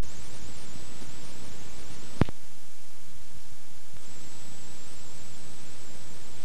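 Steady hiss of static from blank videotape playing, with a sharp click at the start and another about two seconds in, and a thin high whine that comes and goes.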